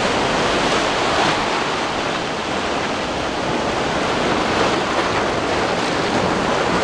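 Rough sea surf washing and breaking over a small sandy beach in a strong wind, with wind buffeting the microphone.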